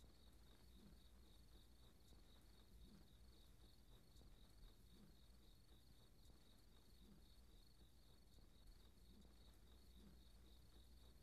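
Faint crickets chirping in a steady, evenly pulsing rhythm: night ambience.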